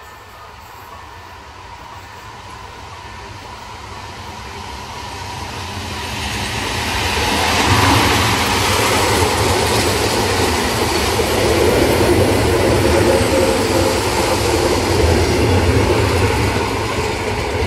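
Orange electric passenger train approaching and passing a level crossing close by. A rumble swells over the first eight seconds or so, then the carriages go past as a loud, steady rush of wheels on rail.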